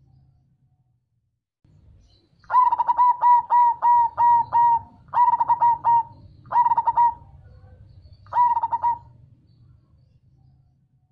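Zebra dove (perkutut) singing its cooing song: after about two seconds of quiet, a quick run of about seven clipped coos, then three shorter groups of coos with pauses between them.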